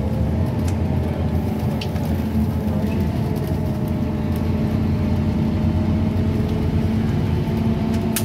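Scania N230UB OmniCity single-decker bus heard from inside the cabin while under way: the steady low drone of its diesel engine with road noise and a faint whine that drifts slowly in pitch. A few light clicks and rattles sound over it.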